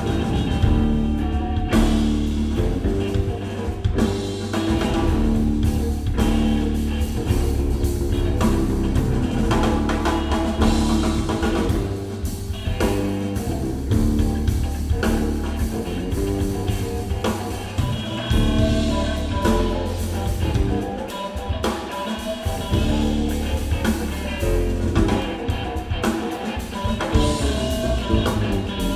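Live instrumental groove from an electric guitar, bass guitar and drum kit trio, playing steadily.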